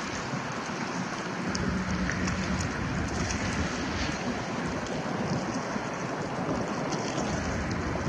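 River water washing against shoreline rocks as a steady rush of noise, with wind rumbling on the microphone from about a second and a half in.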